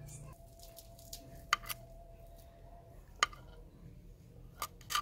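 Knife slicing boiled sweet potato, the blade clicking sharply against the bowl as each slice goes through, a handful of times at uneven intervals.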